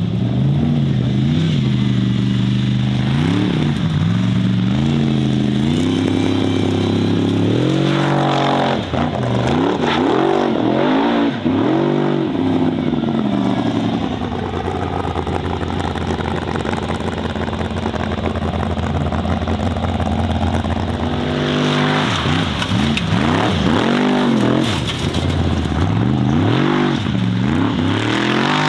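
Off-road competition buggy's engine revving hard again and again, its pitch rising and falling with each throttle blip as the tyres dig in. In the middle it holds steady at high revs for several seconds before the sharp rises and falls start again.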